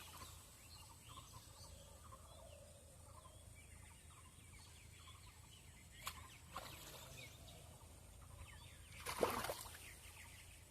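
Faint outdoor background of bird calls and chirps, with a sharp click about six seconds in and one brief louder noise about nine seconds in.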